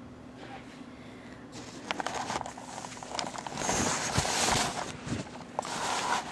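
Handling noise from a handheld camera being moved: rustling with a few light knocks and clicks, starting after a second or so and loudest a little past the middle.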